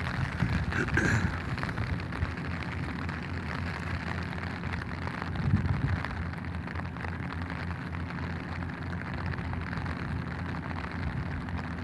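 Steady rain pattering on an umbrella, dense fine drops without a break, over a faint low hum.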